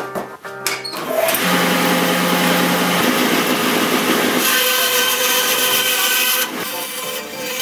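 Bandsaw cutting through a wooden block for knife handle scales. The steady sawing starts about a second in and eases off near the end.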